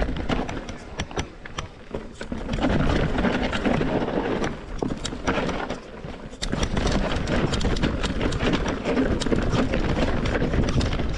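Mountain bike clattering over a rough downhill trail: a rapid, irregular rattle of knocks from tyres, chain and frame over rocks and roots. It is loud in two stretches, from about two and a half seconds in and again from about six and a half seconds on.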